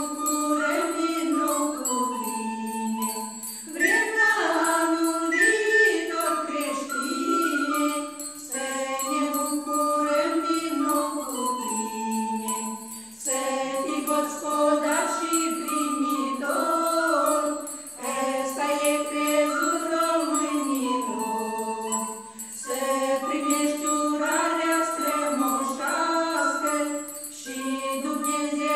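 A women's folk ensemble singing a traditional Romanian-language New Year greeting song in unison, phrase after phrase of about four to five seconds with short breaks between them, with small hand bells jingling.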